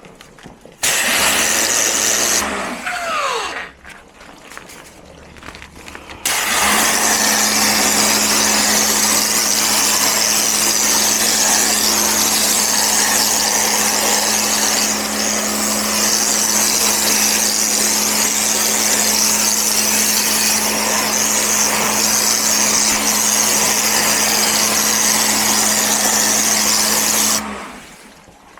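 A motor-driven cleaning machine running with a steady hum under a loud, rushing hiss. It is switched on in a short burst about a second in, then runs without a break for about twenty seconds and cuts off near the end.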